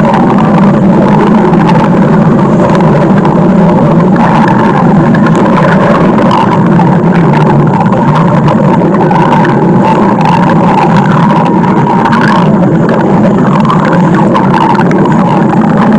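Very loud, continuous stomach growling, a dense rumble that runs with no pauses.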